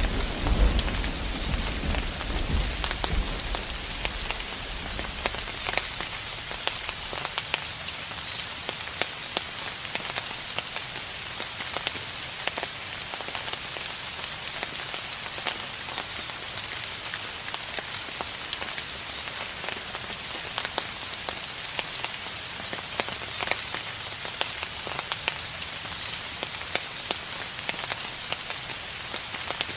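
Steady rain falling, with many fine drop ticks, and the low rumble of distant thunder dying away over the first few seconds.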